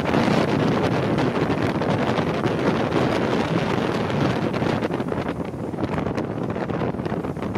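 Wind buffeting the microphone on a moving rigid-hull inflatable boat, a steady rushing noise with the boat's engine and water noise mixed in underneath.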